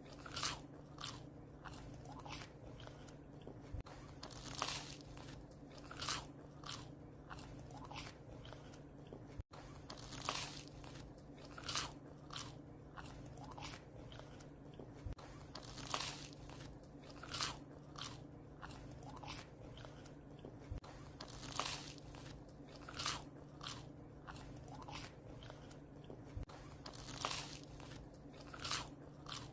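A dog chewing bread, with irregular crunchy bites that often come in quick clusters of two or three.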